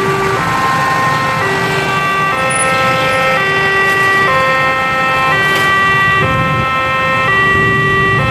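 Level-crossing warning alarm at a KRL commuter-rail crossing: an electronic two-tone signal alternating between a lower and a higher note about once a second. Under it runs the engine and tyre noise of passing trucks, cars and motorcycles.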